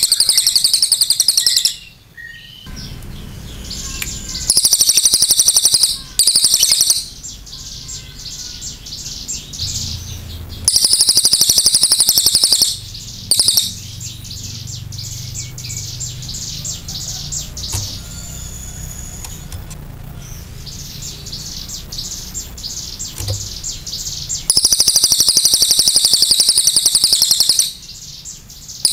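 A crested jay (cililin) calling loudly in fast-pulsed, high-pitched rattling bursts of one to three seconds, about five times, with softer chattering in the long gap in the middle.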